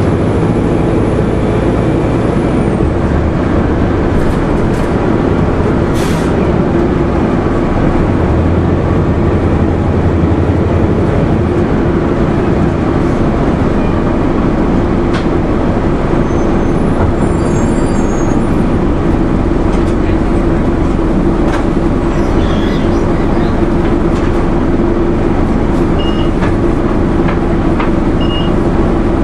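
Inside a 2001 Nova Bus RTS transit bus, its Detroit Diesel Series 50 four-cylinder diesel runs with a steady, loud drone and low rumble. A few short high beeps sound near the end.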